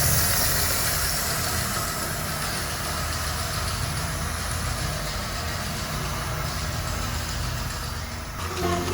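A motor running steadily with a low hum, like an engine idling. It changes to a different sound near the end.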